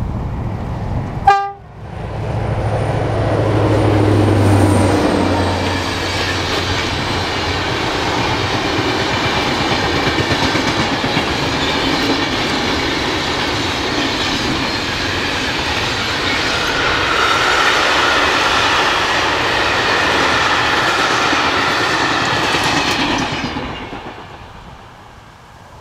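Diesel-hauled freight train passing: the locomotive's low engine drone drops in pitch as it goes by, then a long run of empty flat wagons rolling past, fading out near the end. A sharp crack about a second in is the loudest moment.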